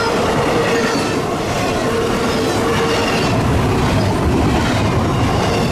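Double-stack intermodal freight train rolling past close by: a loud, steady rumble of wheels on rail, with a thin wheel squeal that comes and goes.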